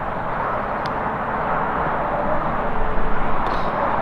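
Steady outdoor background noise: an even rushing hiss with an uneven low rumble underneath.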